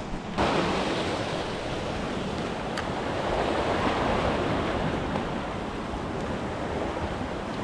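Sea surf surging and washing over a rock ledge, a steady rush of whitewater that comes in suddenly about half a second in, with some wind on the microphone.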